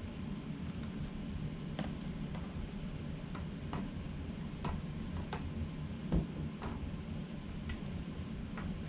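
Scattered light plastic clicks and taps, irregular and about a second apart, from a DJI Mini 2 drone and its remote controller being handled and set down on a glass tabletop. The loudest knock comes about six seconds in.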